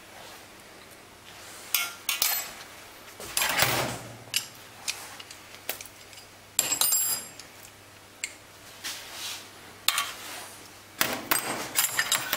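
Small steel parts of a Bosch common rail diesel injector and hand tools clinking against metal as the injector is taken apart in a clamping fixture. The clinks are scattered and sharp, with a longer rattle about three and a half seconds in and a quick run of clinks near the end.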